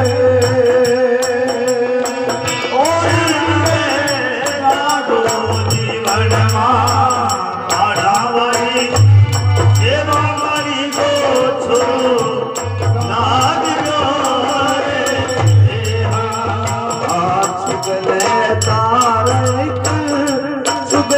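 Rajasthani devotional folk bhajan: a voice singing over rattling percussion, with a low drum beating in short runs.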